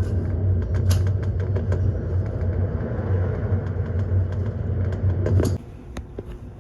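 Car ferry's engines at sea: a steady low hum with a rushing noise over it. The hum drops away sharply about five and a half seconds in, leaving a quieter rush, with a few light clicks throughout.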